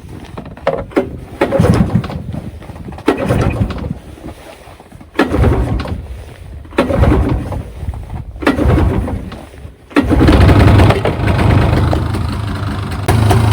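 Cold start of a 1992 Polaris 350L's two-stroke engine on choke: it runs roughly in short bursts, nearly dying between them, then about ten seconds in catches and settles into a steady run.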